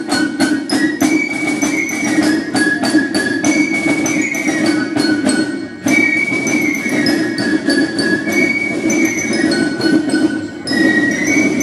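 Fife and drum band playing a march: a shrill fife melody over rapid snare drum strokes, broken by two short dips, about six seconds in and near the end.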